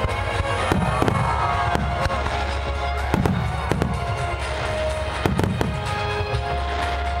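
Aerial fireworks going off in a quick, irregular series of booms and crackles, a dozen or so bursts, over music playing in the background.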